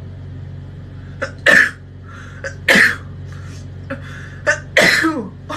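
A woman sneezing three times, a second or two apart, each sneeze a sharp burst with a short catch of breath just before it, set off by a nasal feeding tube being threaded back up her nose.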